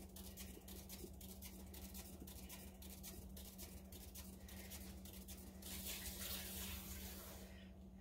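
Paint-pour spinner turning with a freshly poured piece on it: a faint rapid ticking, several ticks a second, that stops about five and a half seconds in, followed by a brief soft hiss that fades as the spin ends.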